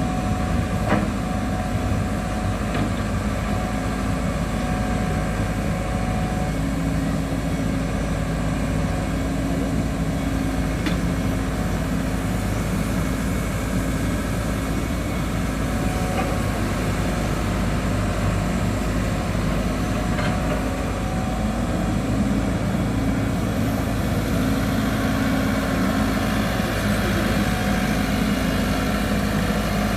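Caterpillar 313 excavator's diesel engine running steadily, with a few faint clicks.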